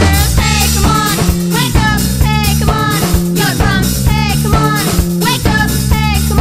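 Upbeat rock music with drums, bass guitar and a melody line over them.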